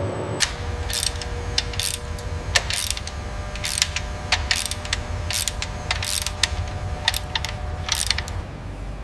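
Mechanical clicking and ratcheting in short, irregular bursts, about two a second, over a steady low factory hum. The clicking stops shortly before the end.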